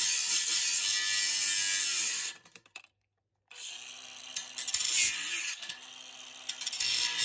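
Cordless angle grinder's cut-off wheel cutting through steel pipe: a loud, high grinding hiss that stops abruptly a little over two seconds in. After about a second of silence the grinder cuts again in shorter runs, loudest a couple of seconds later and again near the end.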